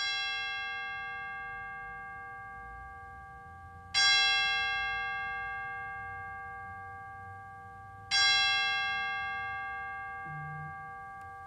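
A bell struck three times, about four seconds apart, each strike at the same pitch and ringing on as it fades slowly.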